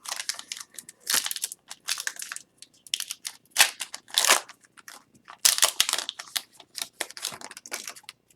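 Plastic wrappers of Upper Deck hockey card packs crinkling and tearing as packs are opened, in irregular bursts of rustling.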